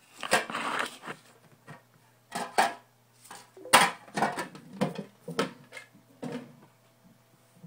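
Trading cards being handled and added to a pile: a series of short clacks and rustles that stop about six and a half seconds in.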